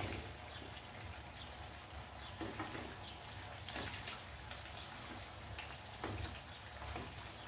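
Maida bondas sizzling in hot oil in a nonstick kadai, a steady frying hiss with scattered small crackles, and a few soft touches as a spatula moves them apart. The flame has just been turned off, so they are frying on the oil's leftover heat.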